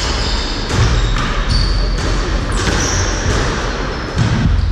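Squash rally: the ball smacks off rackets and walls about once a second. Short high squeaks, likely sneakers on the wooden court floor, come between the hits, over a steady low rumble.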